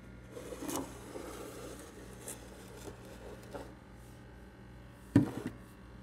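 Handling noise of small objects being moved about on a countertop: rustling, a few light clicks, and one sharp knock about five seconds in followed by two smaller ones, over a low steady hum.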